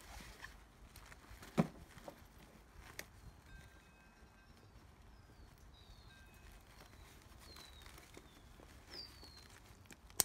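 A few light clicks and knocks as the shoulder strap and clip of a fabric travel bag are handled, the sharpest about a second and a half in. Behind them, birds chirp faintly: short falling notes, repeated through the middle of the stretch.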